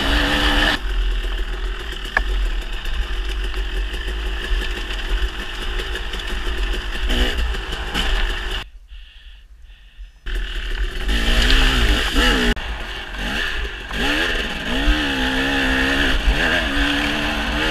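KTM 250 XC two-stroke single-cylinder dirt bike engine revving up and down as the bike is ridden hard along a trail, with wind buffeting the helmet-camera microphone. Around the middle the sound drops out for about a second and a half, then the engine comes back revving.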